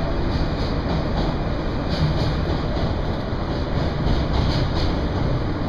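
New York City subway M train running, heard from inside the car: a steady rumble of wheels on rails with faint, irregularly spaced clicks.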